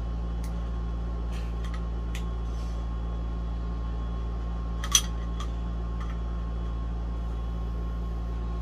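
A steady low mechanical hum with a few faint clicks, and one sharper click about five seconds in.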